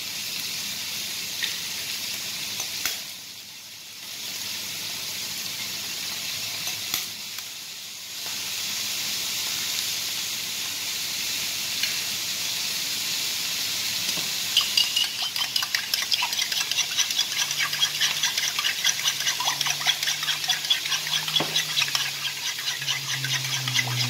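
Onions sauteing in a frying pan, a steady sizzling hiss, with a few sharp taps of eggs being cracked with a spoon. From about 15 seconds in, eggs are beaten with a spoon in a plastic bowl: a rapid clicking about four times a second over the sizzle.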